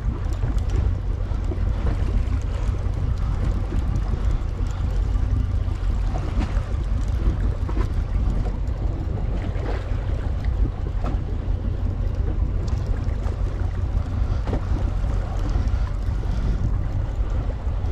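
Fishing boat under way at trolling speed: a steady low rumble of motor and wind on the microphone, with the wash of the lake water around the hull.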